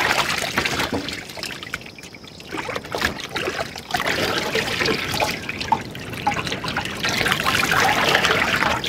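Water trickling and splashing off freshly washed mutton pieces as they are piled onto a steel tray, with a quieter stretch about two seconds in.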